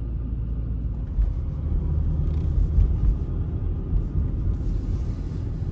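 Low, steady road rumble of a moving car heard from inside the cabin: engine and tyre drone.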